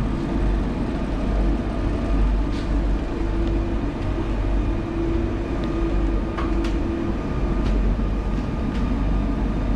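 Steady low rumble and hum inside a Eurotunnel Le Shuttle rail carriage, with a steady tone that fades about seven seconds in and a few faint ticks.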